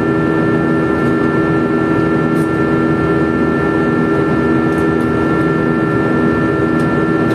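Steady cabin noise of an airliner in cruise: a loud, even rush of engine and airflow with a constant hum of a few fixed tones.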